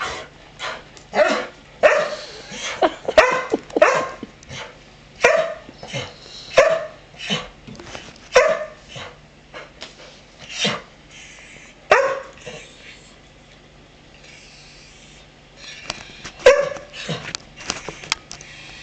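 A dog barking to beg: about a dozen and a half short barks, spaced half a second to a second apart, then a pause of a few seconds and another short run of barks near the end.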